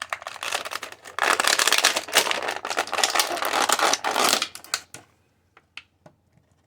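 Plastic packaging crinkling and crackling as an action figure is worked out of its box tray. The dense crackle goes on for about four and a half seconds, then gives way to a few separate light clicks.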